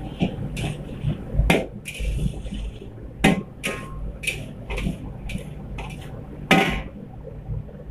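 Metal ladle clanking and scraping against a steel wok as rice is stir-fried, in irregular strokes about once or twice a second, over a low steady rumble. The strokes thin out near the end.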